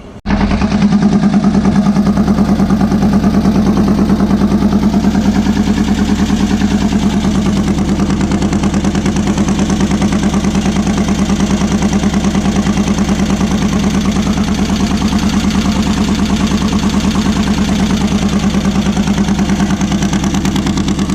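VW beach buggy's air-cooled flat-four engine, cutting in suddenly about a quarter second in and then running loud and steady with an even pulsing beat. The engine is still misfiring, which the owner suspects is over-fuelling at tick-over.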